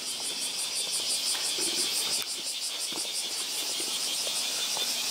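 A chorus of insects chirping high and steady in rapid, even pulses, with soft footsteps on stone steps underneath.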